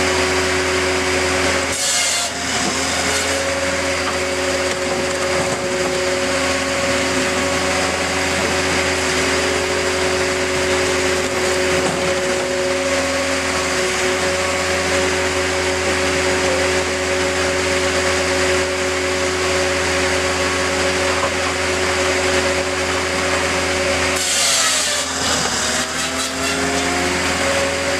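Firewood processor working: its engine and hydraulics run in a steady drone while the machine saws and splits logs. Two brief, louder bursts of cutting noise come about two seconds in and again near the end.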